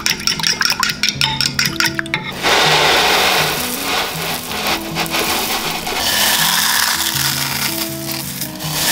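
Metal spoon clicking and scraping against a ceramic dish as it stirs a thick creamy mixture, then, about two seconds in, corn flakes poured from the box into a bowl in a loud dry rustling rush, followed by more rustling and crunching as a gloved hand crushes the flakes. Background music with low steady notes plays under it all.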